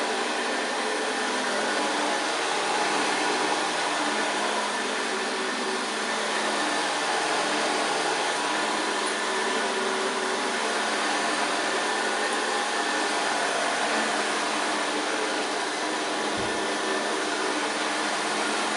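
A 1971 Hoover Senior 6525C upright vacuum cleaner running steadily, a constant motor hum with several steady tones through it.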